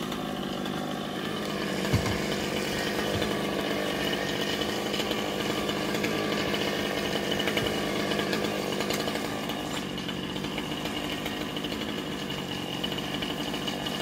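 Chainsaw running steadily as it cuts a section off the top of a standing pine trunk, with one brief sharp knock about two seconds in.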